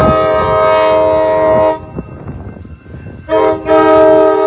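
Amtrak San Joaquin passenger train's horn sounding a chord of several steady tones as the train pulls into the station: one long blast that cuts off about a second and a half in, then a second long blast starting about three seconds in. Under it runs the low rumble of the approaching train.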